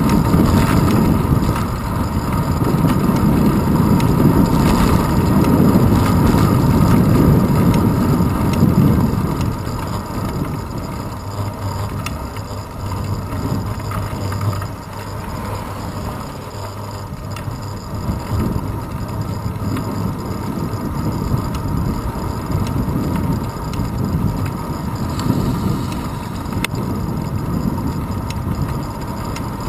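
Wind rumble and road noise on a handlebar-mounted GoPro while a bicycle rolls along an asphalt street. The rumble is loudest for about the first nine seconds, then eases to a lower, steadier level.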